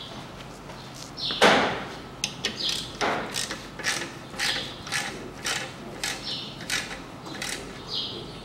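Ratchet wrench working a bolt on an air compressor's cylinder head: two sharp metal knocks, then a run of even ratcheting clicks, about two to three a second.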